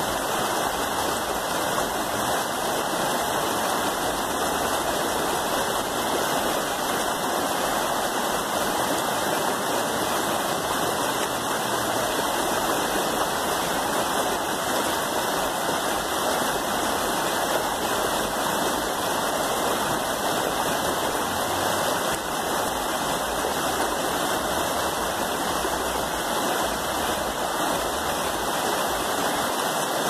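Fast, shallow stream rushing and splashing over rocks, a steady unbroken noise of white water.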